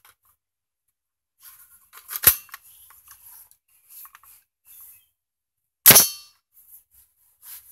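Two sharp metallic cracks from an AR-15 rifle being worked for a single shot, one about two seconds in and a louder one near six seconds in that rings briefly, with faint handling rustle between them.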